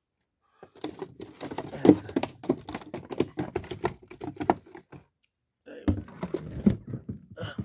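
Freshly caught mojarras flapping inside a plastic cooler, a rapid, irregular patter of slaps and knocks against the plastic. It stops briefly, then a second bout starts near the end.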